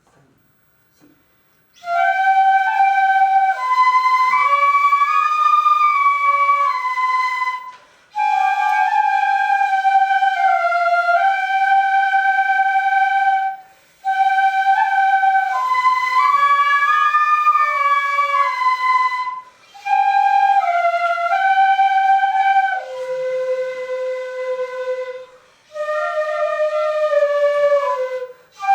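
Shinobue, Japanese transverse bamboo flutes, playing a slow, sustained melody. The melody comes in phrases of five to six seconds with brief breath pauses between them.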